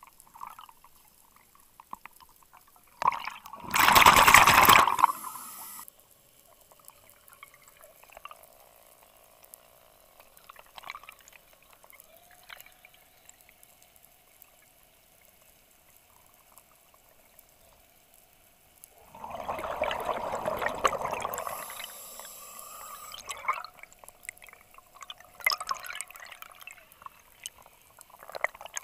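A scuba diver breathing through a regulator underwater: two loud rushes of exhaled bubbles, about four seconds in and about twenty seconds in, each trailing off into a fainter hiss, with quiet water noise between.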